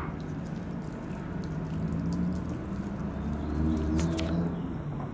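Soft wet squishing and light clicks of hands rubbing an herb and garlic mix into raw filet mignon pieces over a small bowl. A low steady rumble runs underneath and swells briefly about four seconds in.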